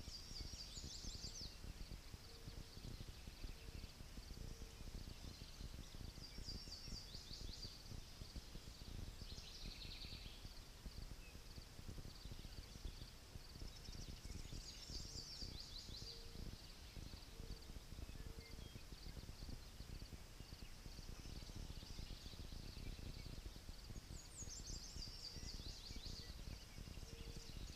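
A songbird sings short phrases of quick, falling high notes every few seconds over a steady low wind rumble, while a soft low note repeats in groups of two or three.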